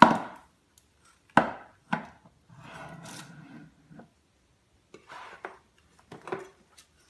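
Formula canisters and tins knocking and clattering against a wooden cabinet shelf and the floor as a baby handles them: a sharp knock at the start, two more about a second and a half and two seconds in, a scraping slide in the middle, then short bursts of clatter near the end.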